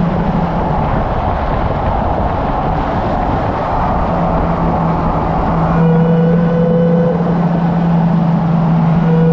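A car driven at speed on a racetrack: its engine drone mixed with tyre and wind noise. A low, steady hum drops away briefly after the start and returns, and a higher steady tone joins in about six seconds in.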